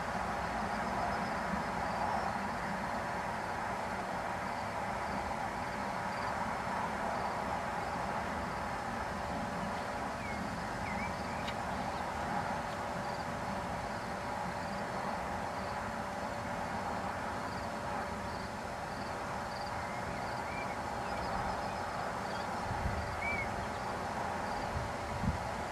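Steady outdoor background noise with a few faint short chirps.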